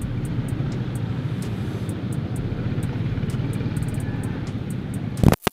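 Motorcycle engine idling steadily in slow traffic, a low even hum, with a brief loud noise near the end.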